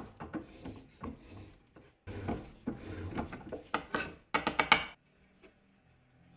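Wooden boards sliding and rubbing on a wooden drill press table, with a short high squeak about a second in. A quick run of sharp wooden knocks follows near the end as the pieces are shifted and set down.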